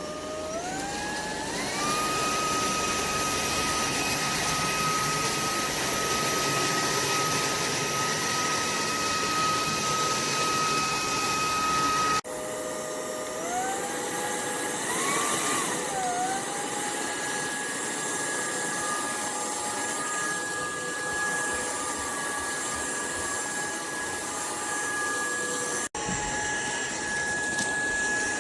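UNINELL UV3 cordless stick vacuum running: its motor spins up with a rising whine over about two seconds, then holds a steady high whine over a rush of air. After an abrupt cut it is heard running again, its pitch briefly rising and dipping about halfway through.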